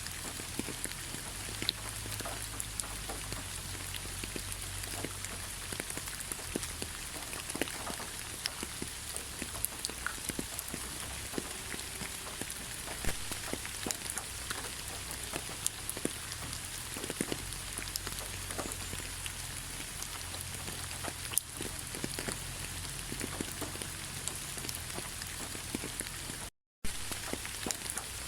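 Steady rain falling, an even hiss with frequent sharp ticks of single drops hitting close by. The sound cuts out completely for a split second near the end.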